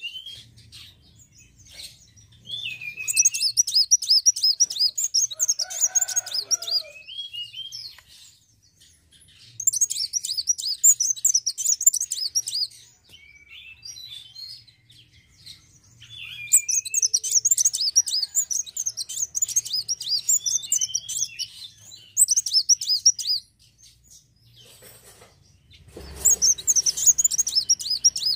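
Kolibri wulung (Van Hasselt's sunbird) singing: four bursts of rapid, high twittering song, each a few seconds long, with pauses between them filled by scattered lower slurred notes.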